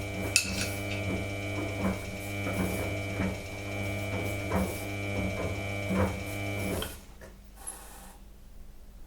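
Samsung Eco Bubble washing machine humming steadily during its spin program, with a high whine above the hum and light irregular knocks, then cutting off about seven seconds in.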